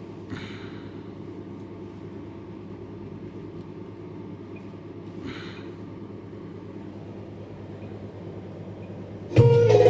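Low, steady hum from an amplifier and speaker running with no music playing, with two short hissing rustles, one right at the start and one about halfway. Loud music cuts in abruptly just before the end.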